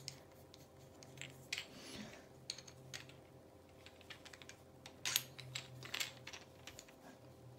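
Scattered light clicks and clinks of small metal parts being handled, a few close together about five seconds in, over a faint steady hum.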